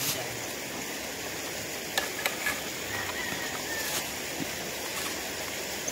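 A few light clicks and taps from hands working on a small chainsaw that is not running, over a steady rushing background noise.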